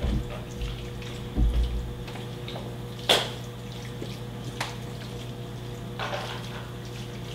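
Cooking at the stove with metal pots and utensils: a few dull knocks in the first two seconds, then a sharp metal clink about three seconds in and a couple of softer clicks after it, over a steady low hum.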